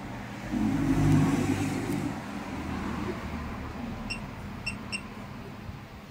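Three short electronic beeps from a programmable bench DC power supply as its front-panel buttons are pressed, about four to five seconds in. Before them, a louder rumble swells and fades over the first two seconds.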